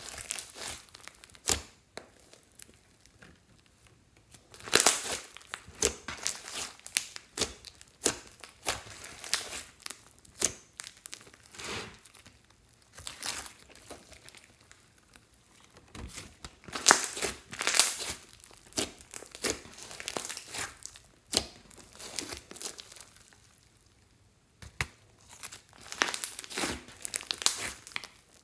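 Hands squeezing, poking and stretching a thick lump of fluffy slime with floam beads mixed in. It gives off crackling pops and tearing sounds in repeated bursts, with short quieter gaps between.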